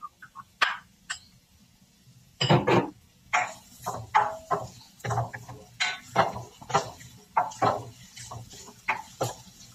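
Black plastic spatula tapping and scraping diced ginger out of a small bowl with a few light ticks, then, from a couple of seconds in, stirring the ginger around a nonstick wok in a little oil: a run of scrapes about one to two a second.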